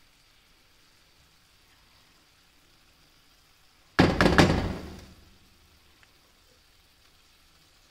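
Three or four quick knocks against a non-stick frying pan on a gas stove, about four seconds in, ringing briefly and dying away within a second.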